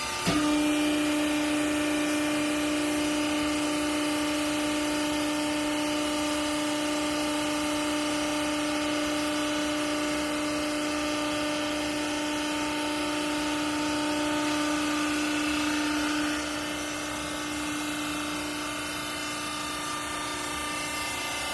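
Hydraulic baler's motor and pump running with a steady whine that starts with a click just after the start and cuts off about sixteen seconds in, over a continuous machine hum.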